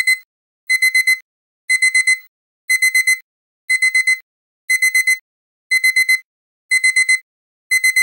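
Electronic timer alarm beeping in groups of four quick, high-pitched beeps, repeating about once a second. It signals that the 30-second countdown has run out.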